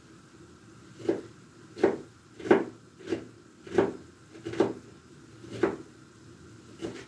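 Kitchen knife chopping onion on a wooden cutting board: about eight knocks of the blade on the board, one every second or so, starting about a second in.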